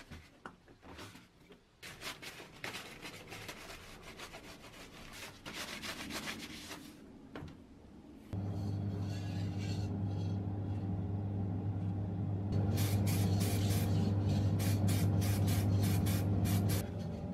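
Irregular hand scraping and rubbing with small clicks, then about eight seconds in an electric motor switches on and runs with a steady hum, cutting off just before the end, while something is rubbed or abraded in quick repeated strokes.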